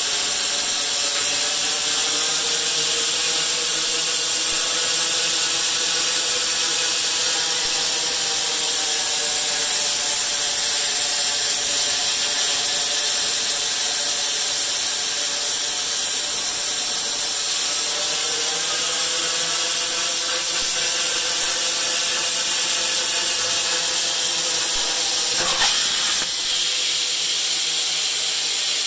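CNC plasma cutter torch cutting through steel pipe: a loud, steady hiss with a whining tone that slowly wavers in pitch. Near the end the arc cuts out and the whine drops away, leaving only a steady hiss.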